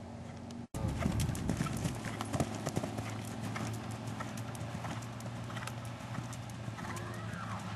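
Hoofbeats of a grey show-jumping horse cantering on a dirt arena: a quick, uneven run of thuds and clicks, louder after a brief dropout about a second in.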